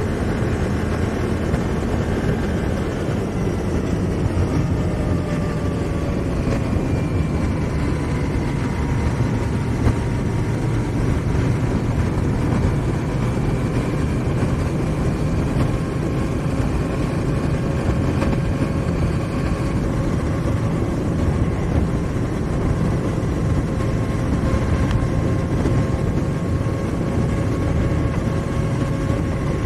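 2018 Honda Africa Twin's 998 cc parallel-twin engine running as the motorcycle rides along, under steady wind and road noise. The engine note drops a little over the first several seconds, then holds steady.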